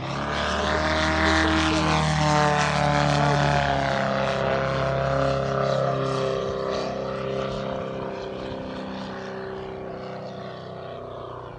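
Valach 420 engine and propeller of a 4.5 m Yak 54 model aerobatic plane running at power on a low pass. It is loudest in the first few seconds with a slight drop in pitch as it goes by, then fades steadily as the plane climbs away.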